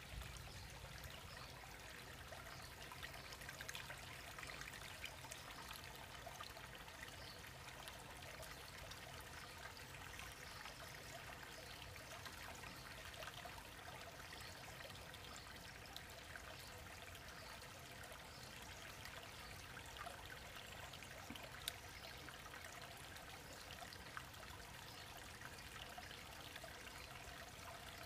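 Faint, steady trickle of running water in a garden koi pond, with an occasional tiny click.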